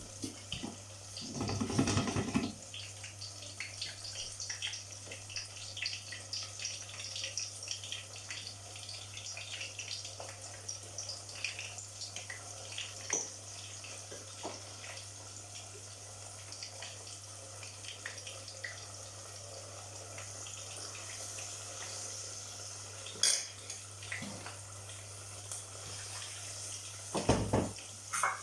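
Tap water running at a kitchen sink while dishes and cutlery clink and clatter, with a heavier thump about two seconds in and another near the end.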